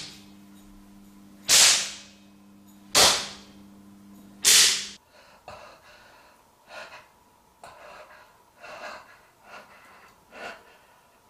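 Three sharp lashes of a belt, about a second and a half apart. Then, from about five seconds in, a man's faint heavy breaths and gasps.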